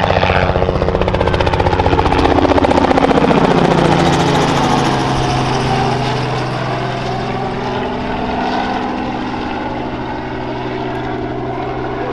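Robinson R44 Raven II helicopter flying low overhead: rapid rotor blade slap over the drone of its Lycoming six-cylinder engine. The pitch drops as it passes about three to five seconds in, then the sound eases off as it moves away.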